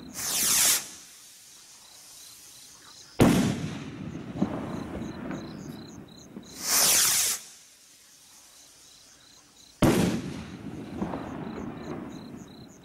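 Firework rockets from a War Hawk rocket pack being let off one after another: each launches with a loud whoosh under a second long, then bursts about three seconds later with a sharp bang that trails off over a couple of seconds. Crickets chirp faintly throughout.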